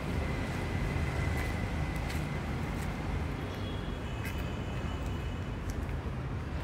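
Steady low rumble of outdoor urban background noise, with a faint high steady tone through the first half and a few faint clicks.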